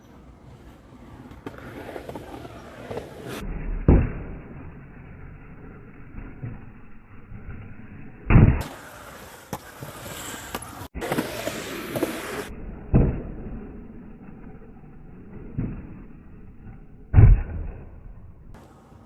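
Skateboard wheels rolling on concrete, broken by about five sharp board impacts from tricks and landings; the loudest impact comes near the end.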